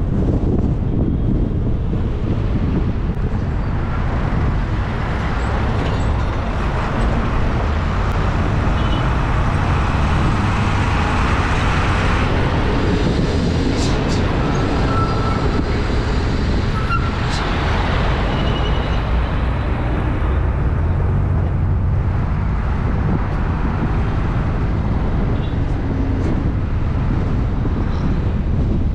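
Wind rumbling on the microphone of a camera on a moving vehicle, with road traffic noise that swells in the middle as a bus drives close alongside.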